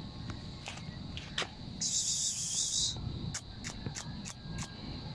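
Insects chirring outdoors: a steady high whine throughout, with a louder high buzz about two seconds in that lasts about a second. A little over three seconds in come five light, sharp clicks.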